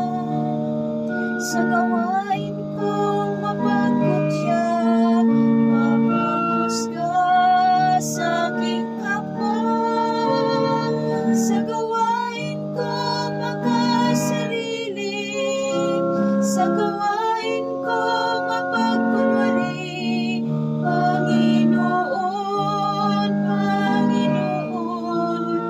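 Music: a woman singing with wavering held notes over sustained instrumental chords.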